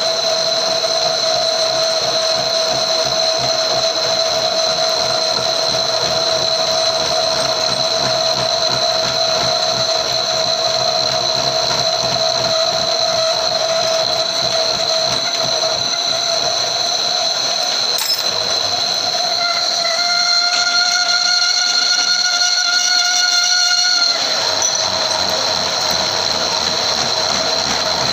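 Lathe boring out the centre hole of a three-groove V-belt pulley with a boring bar: steady machining noise with a high, whistling tone over it. About twenty seconds in the tone shifts and grows slightly louder for a few seconds, then settles back.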